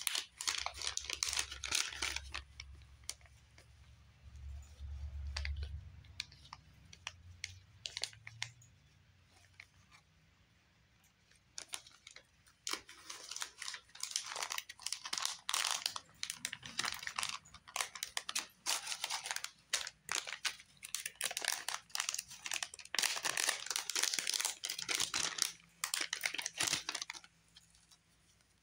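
Crinkling of a plastic packaging pouch and rustling of stiff paper die-cut pieces as they are handled and pulled out. The noise comes in irregular bursts, with a quiet stretch around the middle.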